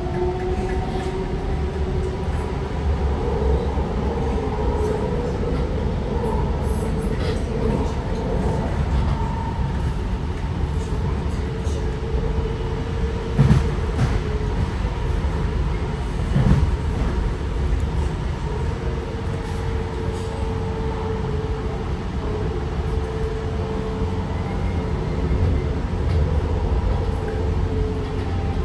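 A TriMet MAX light-rail train running along the track, heard from inside the car: a steady low rumble with a humming tone from the drive. About halfway through come two knocks about three seconds apart.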